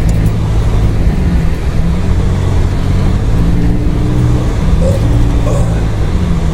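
Car engine running steadily, with tyre and road noise, heard from inside the cabin while driving on a snowy road; the engine note shifts slightly in pitch partway through.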